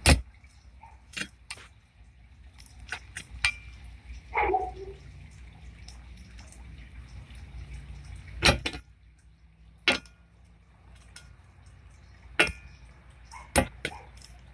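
A drill bit knocking and scraping against a thin sheet-metal panel: about ten sharp, irregular clicks and taps over a low steady hum.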